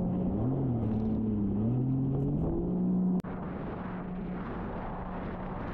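Jet ski engine running, its pitch rising and falling with the throttle over the rush of wind and water. About three seconds in the sound cuts abruptly to a quieter, steadier engine tone.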